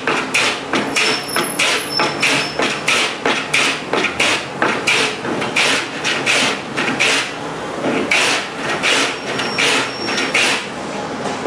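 Hand-sanding the edge of a laminated board with sandpaper: quick back-and-forth rubbing strokes, about two a second, loud and even throughout.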